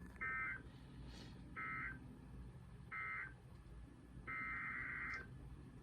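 Emergency Alert System SAME digital data bursts, warbling two-tone bursts. Three short bursts come about a second and a half apart, which is the end-of-message code closing the winter storm warning. A longer burst follows about four seconds in, the header that starts the next alert.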